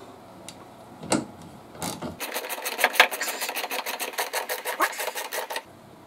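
Rapid, even metallic clicking, about ten clicks a second for some three seconds, from hand work on the Kawasaki Z1000's rear wheel and chain adjuster; it stops suddenly.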